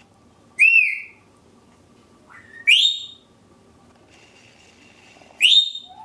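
A Congo African grey parrot gives three loud, high whistles, about two to three seconds apart. Each whistle sweeps sharply upward in pitch; the first arches up and back down.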